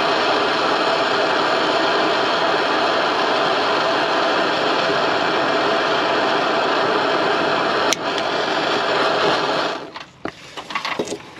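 Handheld gas torch burning with a steady hiss while heating a rusted brake line fitting to help free it. A sharp click about eight seconds in; the flame cuts off just under ten seconds in, followed by a few light knocks.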